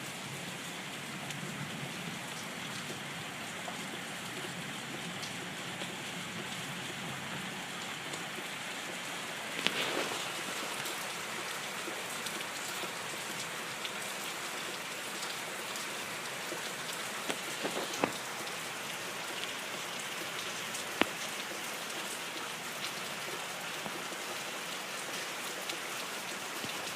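Steady rain falling, an even hiss of drops, with a few sharp louder taps standing out now and then.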